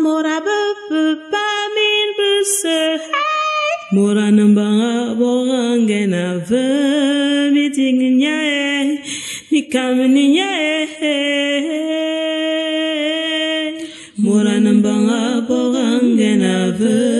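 Chant-like singing with long held notes and some vibrato, breaking off briefly twice.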